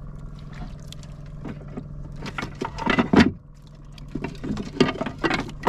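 Boat engine running with a steady low hum. A cluster of louder, irregular knocks and handling noises comes about two to three seconds in.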